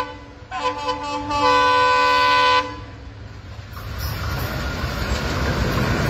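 Approaching diesel locomotive sounding its multi-tone air horn: one long chord-like blast of about two seconds, starting about half a second in. After it stops, the rumble of the train coming on grows steadily louder.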